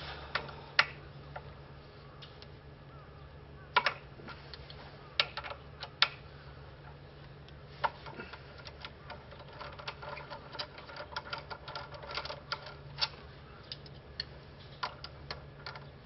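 Socket ratchet clicking as the front brake caliper bolts on a Triumph Bonneville are undone. There are a few scattered clicks and knocks of the tool, then a longer run of quick ratchet clicks from about eight to thirteen seconds in.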